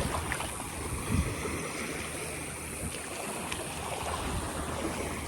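Small waves lapping on a sandy bay shoreline, a steady low wash of water.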